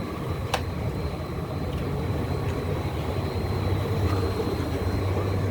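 Solar-powered flour mill (atta chakki) running: a steady machine hum from its electric motor and grinder, growing gradually louder. A single sharp click about half a second in.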